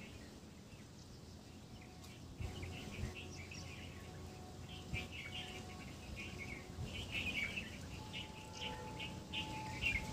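Small birds chirping, many short high chirps that begin about two seconds in and grow busier toward the end, with a few soft low thumps among them.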